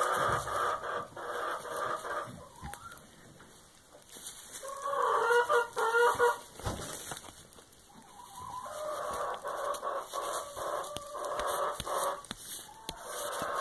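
Chickens clucking, with a louder run of short clucks about five seconds in.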